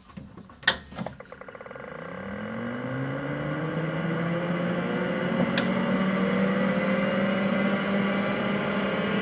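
IBM PC AT power switch thrown with a clunk, then the power supply fan and the Seagate ST-4038 MFM hard drive spinning up: a rising whine that levels off into a steady hum and whir about four seconds in. A single sharp click comes a little past the middle.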